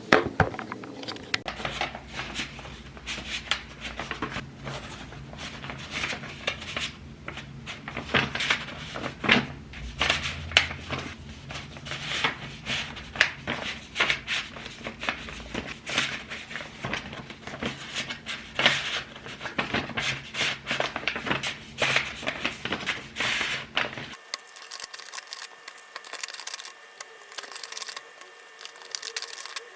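Hands handling packaging material: plastic and paper crinkling and rustling, with many small taps and clicks.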